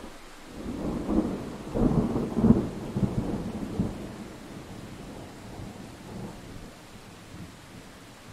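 A roll of thunder over steady rain. The rumble builds about a second in, is loudest a second or so later, then fades out over the next few seconds, with a last faint swell. The hiss of rain carries on under it.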